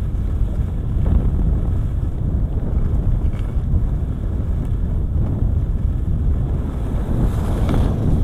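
Wind buffeting a ski camera's microphone at speed down a groomed run, a steady low rumble, with skis hissing on the snow; the hiss brightens near the end as the skier carves a turn.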